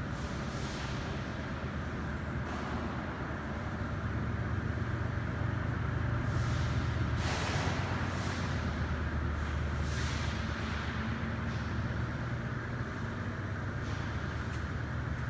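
Factory machinery running with a steady low hum, with short hisses every few seconds.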